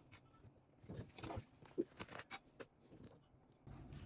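A few faint, scattered soft knocks and clatters as yam pieces and a utensil are handled into a food processor bowl.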